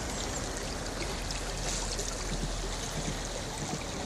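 Rhine river water washing and lapping close by, a steady wash with a low rumble underneath.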